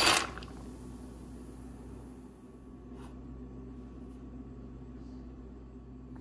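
Dry penne pasta pouring into a saucepan of boiling water: a short, loud, splashing rush right at the start that dies away within half a second. A steady low hum follows, with one faint click about three seconds in.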